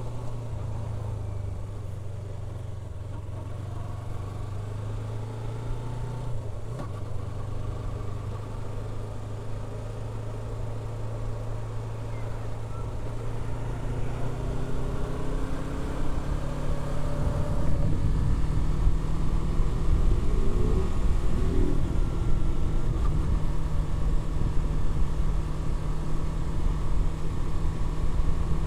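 Yamaha R3's parallel-twin engine running with a steady note, then about two-thirds of the way through the pitch rises and the sound grows louder and rougher as the motorcycle accelerates.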